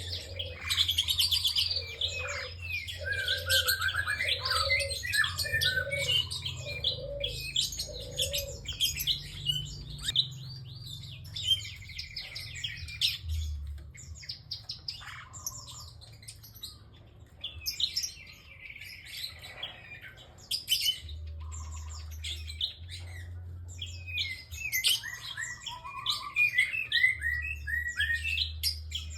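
Prinia (prenjak) singing in rapid, continuous chirping phrases, with a run of short repeated notes in the first third.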